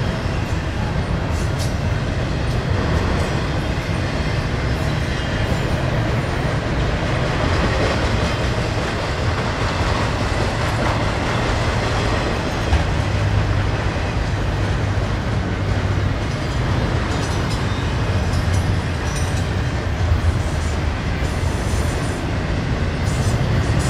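Double-stack intermodal freight cars rolling past close by: a steady, loud rumble of steel wheels on rail, with sharper wheel clicks near the end.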